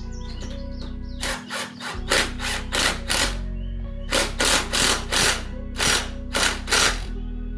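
Cordless drill-driver run in short bursts, about a dozen in two runs, fastening the rear wheel back onto a lawn tractor's axle, over steady background music.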